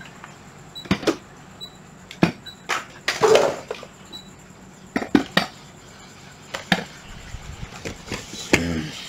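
Scattered clicks and knocks of hard plastic cordless drill bodies being handled and set down, with a louder scraping shuffle about three seconds in.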